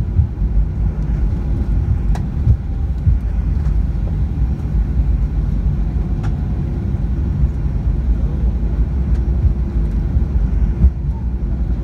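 Cabin noise inside an airliner taxiing after landing: a steady low rumble from the engines and wheels, with a faint steady hum and a few light knocks.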